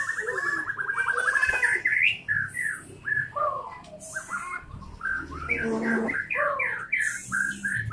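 White-rumped shama singing: a fast trill in the first second or so, then a quick, varied run of whistled chirps and notes that sweep up and down.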